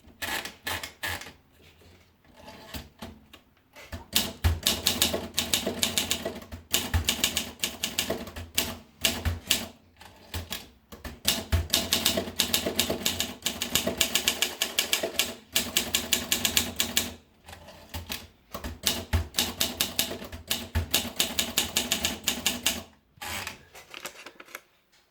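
Olympia SM2 manual portable typewriter being typed on: fast runs of key strikes, broken by several short pauses.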